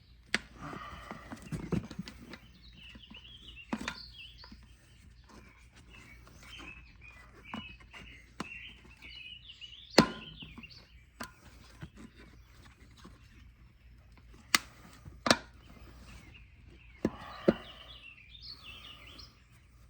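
Irregular sharp clicks and knocks of hand tools on bicycle parts, the loudest about halfway through, with birds chirping in the background.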